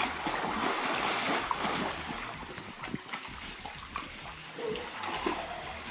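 Pool water splashing and sloshing as swimmers kick through it with mermaid monofins, busiest in the first two seconds and then easing off.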